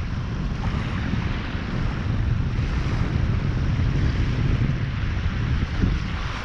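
Wind buffeting the microphone in gusts over the wash of small waves breaking on a sandy shore.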